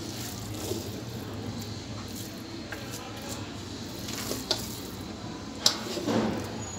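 Wooden spoon scooping soft carrot halwa out of a non-stick pan onto a glass plate, with faint scraping and a couple of sharp taps of the spoon, the loudest a little before the end, over a steady background hiss and hum.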